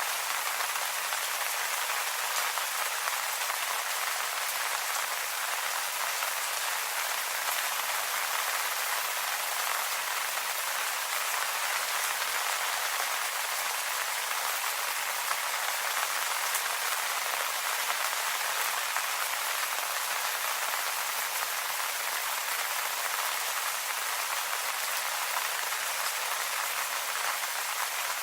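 Steady rain falling on leaves, an even hiss of many small pattering drops that neither builds nor dies away.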